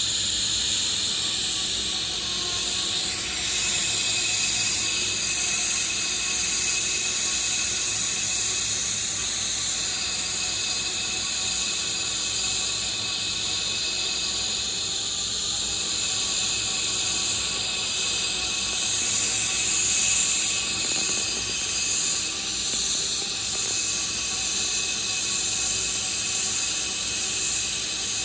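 Steady hiss of a welding arc, running without a break, with a few faint high tones over it.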